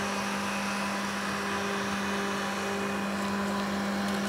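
Mammotion Luba 2 AWD robot lawn mower's electric motors running with a steady, even hum as it drives around an obstacle.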